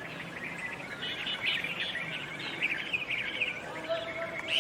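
A flock of small birds chirping, many short calls overlapping in a continuous chatter.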